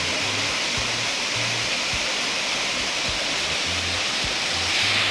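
Steady rushing of a small forest waterfall pouring over rock, with the bass line and beat of a hip-hop reggae song playing underneath.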